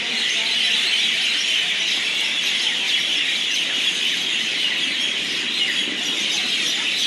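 A large flock of mynas at their roost, many birds calling at once in a continuous dense chorus of squeals and chatter.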